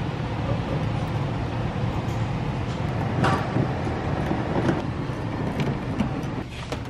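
Steady low mechanical hum, with a few short clicks and scrapes of a hand wrench working on the car seat's mounting bolts.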